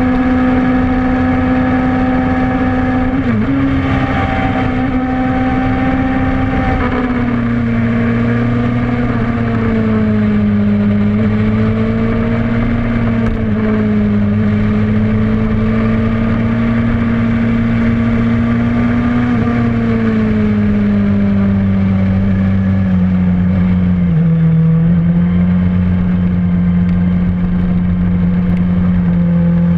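Suzuki GSX-R motorcycle's inline-four engine running steadily at a high pitch, the pitch sagging slowly and stepping down a little twice in the second half. The owner calls it a bad motor.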